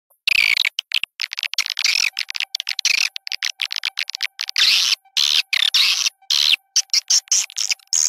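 Swiftlet lure call: rapid, buzzy twittering chirps from swiftlets in quick bursts, the calling sound played to draw swiftlets into a nesting house. A faint steady tone runs underneath from about two seconds in.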